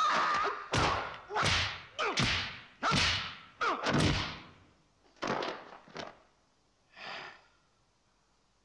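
Martial-arts film fight sound effects: a quick string of sharp whooshing swishes of punches and strikes, about eight in the first six seconds. The first comes with a shrill yell, and a softer swish follows about seven seconds in.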